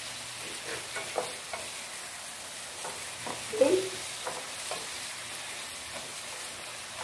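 Patola (sponge gourd) and carrot chunks frying in a pan with a steady sizzle, while a wooden spatula stirs and scrapes them, clicking against the pan a few times. A brief squeaky note sounds a little past halfway through.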